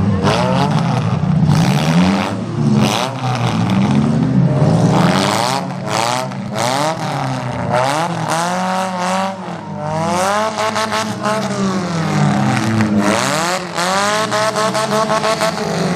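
Several demolition derby cars' engines revving up and down by turns as the cars manoeuvre and ram one another. Occasional sharp bangs from the collisions can be heard among the engines.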